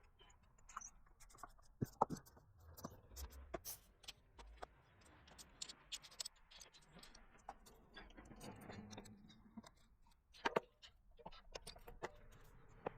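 Faint handling noises while working on a bicycle wheel and tire: scattered light clicks and taps with scraping and rustling, the sharpest clicks about two seconds in and again past ten seconds.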